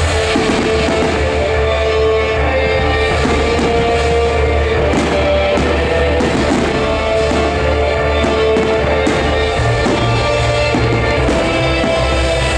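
Loud music from the show's sound system with firework shells bursting and crackling through it, many sharp bangs and cracks over the music.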